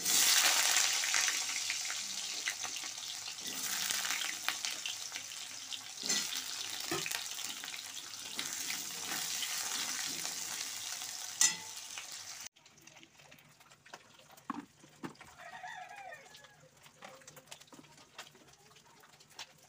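Potato chunks frying in hot oil in a kadai, a loud sizzle with the clicks and scrapes of a spatula turning them. About twelve seconds in the sizzle cuts off suddenly, leaving only faint knocks and handling.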